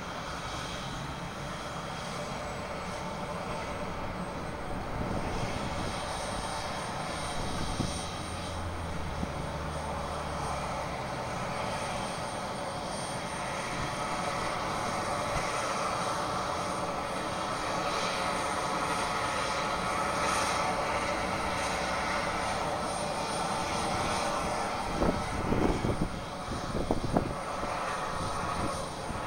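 Sikorsky S-76 helicopter's twin turbine engines and rotors running steadily on the ground before lift-off, a continuous turbine whine over rotor noise that grows a little stronger partway through. A few brief low thumps come near the end.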